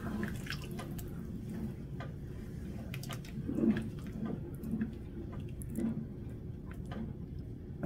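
Wooden spoon stirring a thick tomato sauce with meatballs in a metal pot: wet squelching, loudest a little past halfway, and scattered light clicks of the spoon against the pot. A steady low hum runs beneath.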